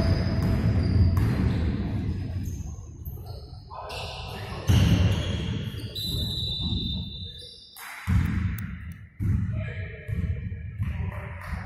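Basketball game in a gym: a ball dribbled on a hardwood court, with short high sneaker squeaks over the echoing rumble of the hall.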